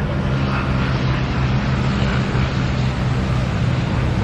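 Jet airliner on approach to land, its engines giving a steady rush with a low hum.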